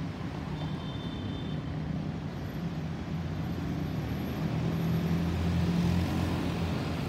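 Airbus A350-941 airliner passing high overhead. The distant low rumble of its Rolls-Royce Trent XWB turbofan engines builds steadily, loudest about five to six seconds in.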